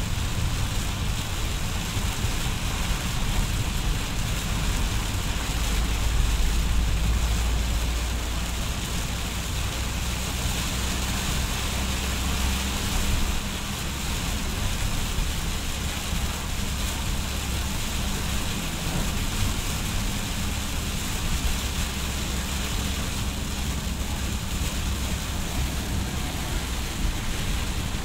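Heavy rain pattering on a car's roof and windshield, heard from inside the moving car, over a steady low rumble of engine and road noise. The deep rumble swells for several seconds from about six seconds in, then settles back.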